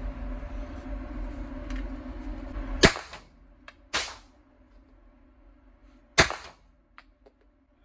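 Three single gunshots at an indoor shooting range, about three, four and six seconds in, each a sharp crack with a short echo; the first is the loudest. A steady low hum runs underneath until the first shot, then fades.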